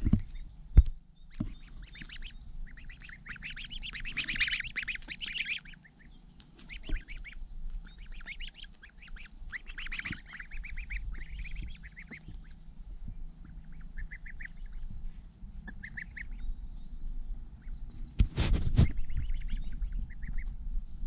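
Month-old goslings peeping with high, repeated calls in several bursts with pauses between. There are a couple of sharp clicks near the start and a short noisy rustle about eighteen seconds in.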